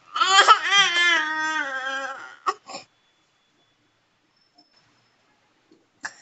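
A toddler's whining cry: one drawn-out, wavering call of about two seconds that sinks in pitch as it ends.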